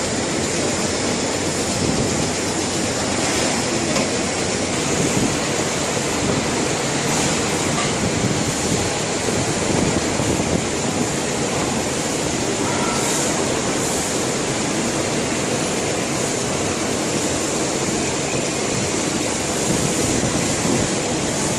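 Steady machinery running noise, an even rattle and rumble with a faint high whine throughout.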